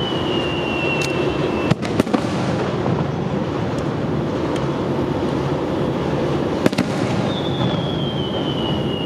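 Fireworks display: a dense, continuous crackle and rumble of bursting shells, with sharp bangs about two seconds in and again past halfway. A high whistle glides slowly down in pitch at the start and again over the last couple of seconds.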